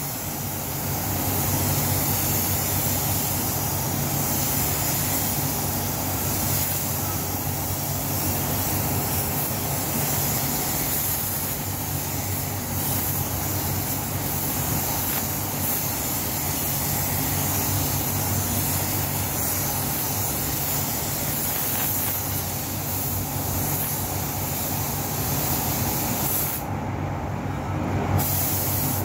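Compressed-air paint spray gun hissing steadily as it sprays paint onto a car body, over a steady low hum of the spray booth's ventilation. The hiss drops away about two seconds before the end, when the gun stops spraying.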